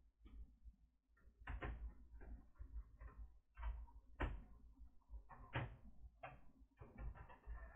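Faint, irregular clicks and knocks of plastic laptop parts being handled and pried apart by hand during disassembly.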